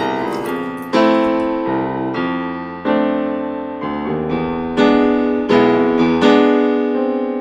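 Background piano music: slow chords struck about once a second, each ringing out and fading before the next.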